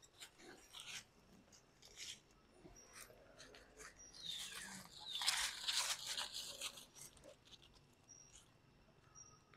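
Young macaque giving a few shrill, falling squeals, loudest about halfway through, over crackling and rustling in dry leaf litter; short rustles and crunches come before it.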